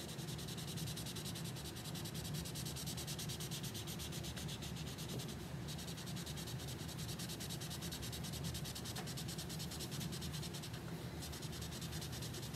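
Felt-tip marker colouring in on paper: a steady run of rapid back-and-forth scratchy strokes, pausing briefly twice.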